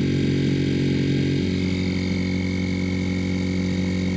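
Steady droning hum over a hiss as compressed air is blown through the AC evaporator line to flush out the old oil, with a pitch shift in the drone about a second and a half in.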